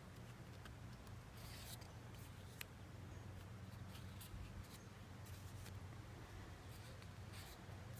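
Faint rustle and slide of thick cardstock art prints being lifted and laid one over another, a few soft paper swishes, over a steady low hum.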